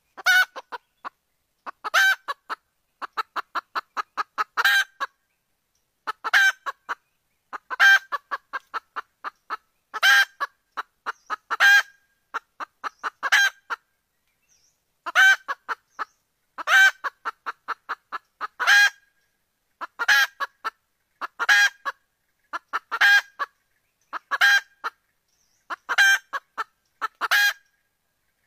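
Junglefowl hen calling: runs of quick clucks, each ending in a louder drawn-out note, repeated about every one and a half seconds. The call is offered as a hen soliciting a mate and is played as a lure to draw junglefowl cocks in.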